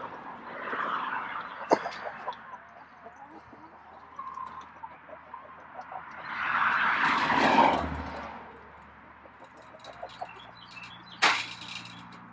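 Hens clucking now and then while someone works close by on the coop's wire fence. There is rustling and handling noise, loudest as a long scraping rustle a little past the middle, and a sharp clack near the end.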